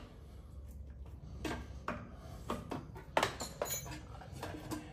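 Spanner clinking and knocking against the motor-mount bolts of a Harrison 140 lathe as they are slackened: several separate metal clinks, the loudest about three seconds in with a short ring.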